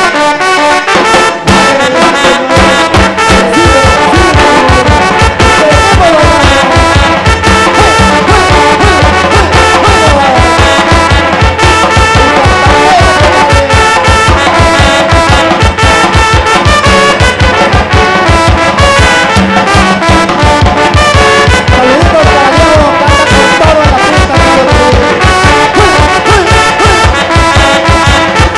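Tamborazo band playing live: trumpets and trombones over the steady beat of the tambora bass drum.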